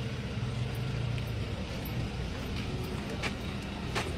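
A motor vehicle's engine running steadily, with two short sharp clicks near the end.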